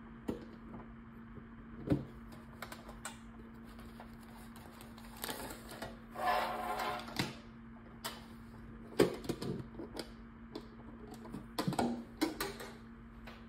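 A lunchbox being handled and opened, with paper savings challenges taken out: scattered clicks and knocks from the box, and a stretch of paper rustling in the middle, over a faint steady hum.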